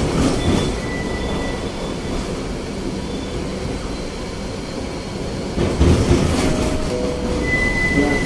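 Modertrans Moderus Gamma LF low-floor tram running along city track, heard from inside the car: a steady rumble of wheels on rail. A thin high wheel squeal comes about a second in and again near the end, and a short cluster of knocks comes about six seconds in.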